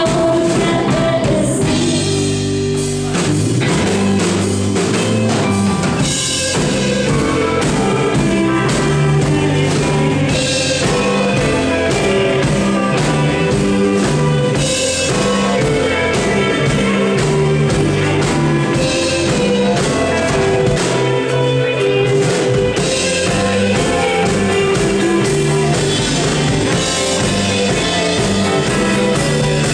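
Live rock band playing: electric guitars and a drum kit, with a singer.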